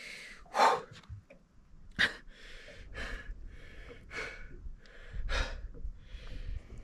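A person breathing hard in a string of short, quick breaths, with a single knock about two seconds in.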